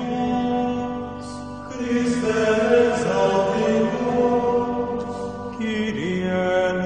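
Closing music of slow chant with long, held notes that change pitch every second or two.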